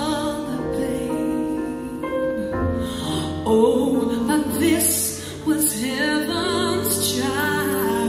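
Female vocal soloist singing a slow melody with vibrato over sustained instrumental accompaniment.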